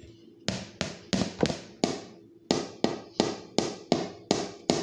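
A kitchen utensil knocking repeatedly against a mixing bowl, about three sharp taps a second.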